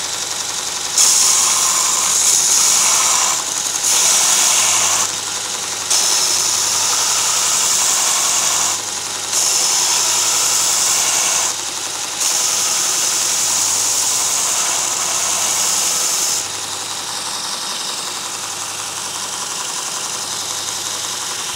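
Robert Sorby ProEdge belt sharpener running steadily, its abrasive belt grinding an old steel chisel in five passes of a few seconds each, each pass a loud high hiss over the motor. The last pass ends about three quarters of the way through, leaving the motor and belt running alone.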